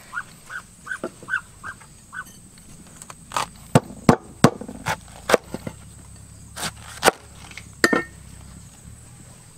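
About seven short, quick animal calls in the first two seconds, then about nine sharp, irregular knocks like wood being struck, the loudest around four seconds in.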